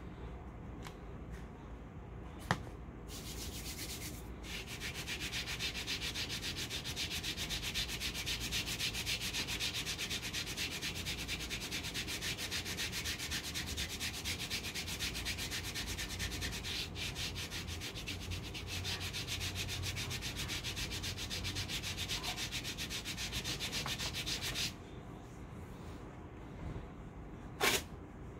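A hand rubbing briskly back and forth over a cold wax hair-removal strip pressed onto the shin, a fast, even, scratchy rubbing that presses and warms the wax against the skin and stops a few seconds before the end. Near the end comes one short sharp sound, the strip being ripped off.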